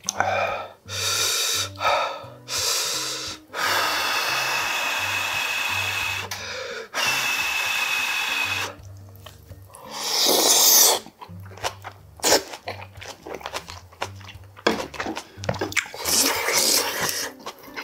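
A person blowing on hot food in a series of long airy breaths through pursed lips, two of them with a thin whistle, then a louder burst of air about ten seconds in and short wet chewing clicks afterwards. Background music with a steady bass beat runs underneath.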